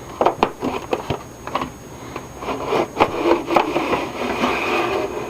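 A DVD drive being slid into a desktop computer's drive bay: irregular clicks and knocks of the drive's casing against the bay, then a steady scraping rub as it slides home near the end.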